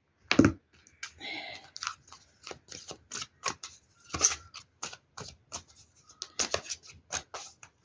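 A deck of tarot or oracle cards being shuffled and handled, heard as a series of irregular crisp clicks, taps and brief rustles.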